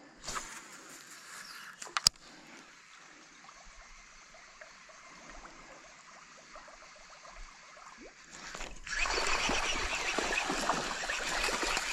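Faint water noise with a single sharp click about two seconds in, then a loud, steady churning and splashing of water from about nine seconds in.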